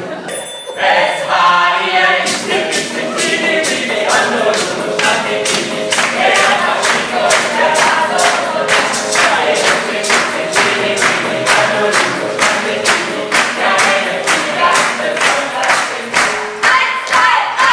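A group of voices singing a song together, with hands clapping along in time about twice a second from about two seconds in.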